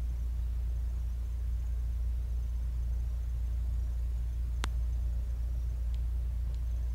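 Steady low background rumble, with one sharp click about two-thirds of the way through and two faint ticks near the end.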